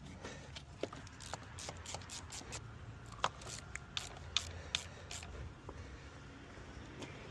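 Tools and parts being handled during a car repair: a string of irregular light clicks and taps, thickest in the middle, over a low steady hum.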